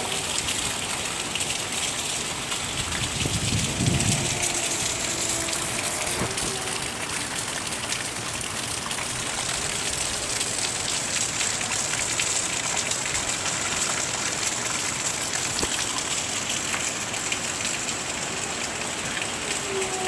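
Heavy hurricane rain pouring steadily, with a brief low rumble about three to four seconds in.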